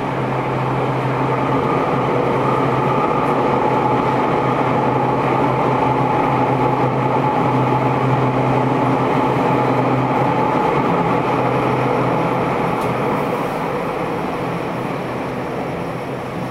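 Tokyo Metro 10000 series subway train running between stations: a steady rumble of wheels on rail with the traction motors' hum and whine. It swells over the first few seconds, holds, and eases off near the end.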